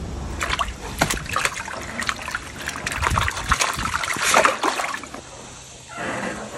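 Caught fish splashing in a wire-mesh fish basket at the water's surface, with water trickling. The splashes come thick and fast for about five seconds, then die down.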